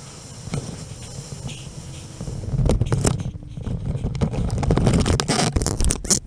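Wind rushing over a helmet-mounted camera's microphone during a parachute descent, then, from about two and a half seconds in, louder rumbling buffets with knocks and scraping as the skydiver touches down on the grass.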